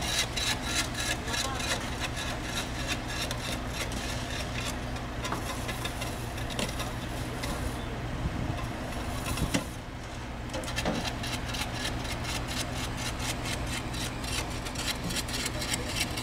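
Rhythmic scraping of a hand tool worked back and forth over fresh hot asphalt, about four strokes a second, thinning out midway and picking up again, over a steady low hum.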